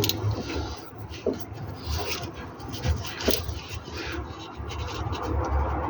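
Hand tools scraping and rubbing against metal, with a few irregular light knocks, as a wrench is worked onto a bolt on a car.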